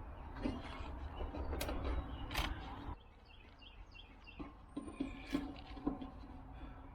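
Hands fitting thin plumbing washers into the sheet-metal top of an outdoor air-conditioner unit: scattered clicks, taps and creaks, over a low rumble that stops about three seconds in.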